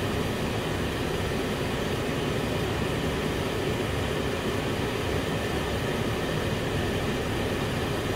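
Chicken stewing in coconut milk at a boil in a frying pan, giving a steady, even low rushing and bubbling.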